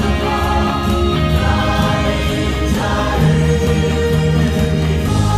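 Mixed choir of women's and men's voices singing a hymn in sustained chords.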